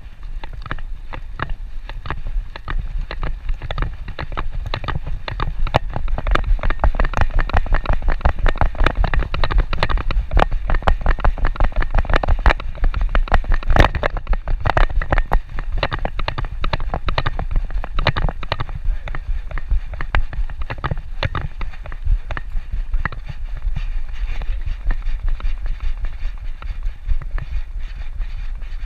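Rapid, irregular clicking and knocking from a dog trotting on pavement with a GoPro strapped to its back, the camera jostling in its harness with each stride, over a low rumble. The knocking is busiest and loudest in the middle.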